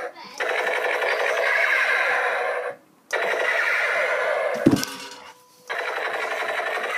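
A dog howling in long, rasping drawn-out cries of about two and a half seconds each, with short pauses between them. There is a single thump about halfway through.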